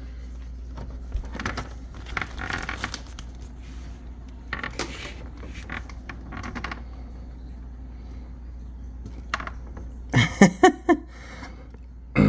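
Light, scattered clicks, taps and rustles of peanuts in the shell and a grey squirrel on wooden deck boards, with a few short, louder sounds about ten seconds in.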